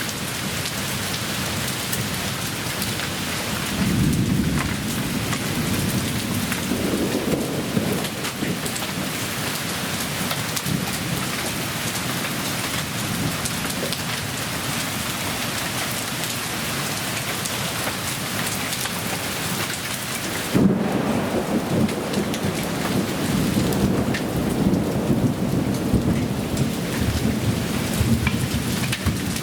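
A heavy storm downpour of rain and hail pelting surfaces as a steady dense hiss full of small hits. Thunder rumbles about four seconds in. A loud thunderclap comes about two-thirds of the way through, followed by a long low rumble.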